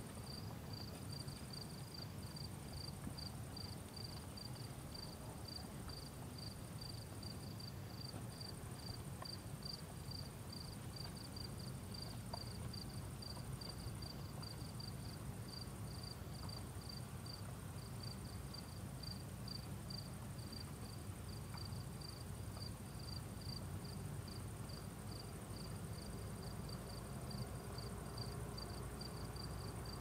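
Crickets chirping at night: one sings a steady, even run of short high chirps, a little over two a second, with a fainter, near-continuous higher trill behind it and a low steady rumble underneath.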